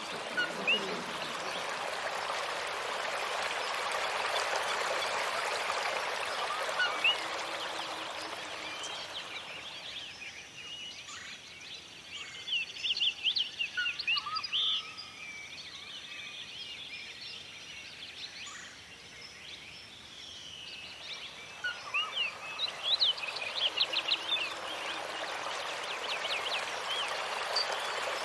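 Small birds chirping in quick short calls over a steady rushing hiss. The hiss drops away for about ten seconds in the middle, leaving the chirps clearer.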